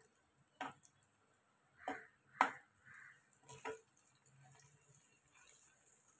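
Metal slotted skimmer clinking and scraping against the frying pan a few times while turning bhajiyas in hot oil. There are short, sharp clicks, the loudest about two and a half seconds in.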